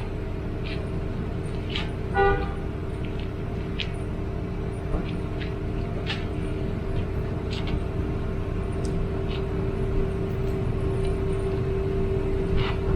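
Road traffic noise with a steady hum and rumble, and a single short car-horn beep about two seconds in.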